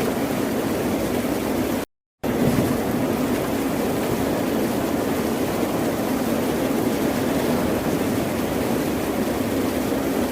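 Steady rush of ocean surf, broken by a brief total dropout to silence about two seconds in.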